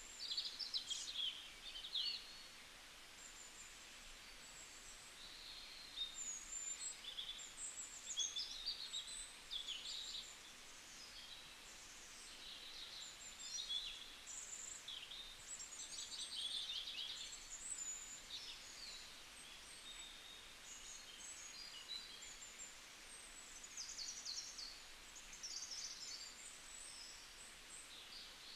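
Several songbirds chirping and trilling at once, with rapid high-pitched note series coming in overlapping bursts every second or two, over a faint steady hiss.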